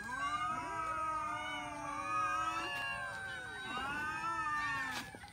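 A large group of cats meowing and yowling all at once, many overlapping calls, as they clamour for food. A brief click sounds near the end.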